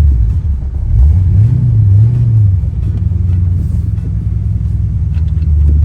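Ford Mustang Fox-body engine running, with its pitch rising about a second in and settling back a second or so later, as in a light rev. The engine is being checked for a misfire after a distributor pickup swap.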